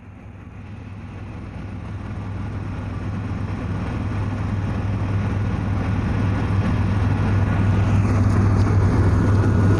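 Helicopter engine and rotor noise: a steady low hum over a dense rumble, growing gradually and evenly louder throughout.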